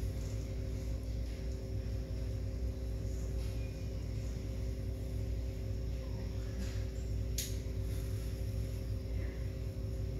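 A steady low hum made of several constant tones, with a brief click about seven and a half seconds in.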